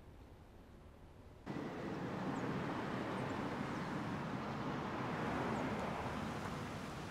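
Street ambience of a car driving past: a steady rush of tyre and road noise that starts suddenly about a second and a half in, with a few faint bird chirps above it.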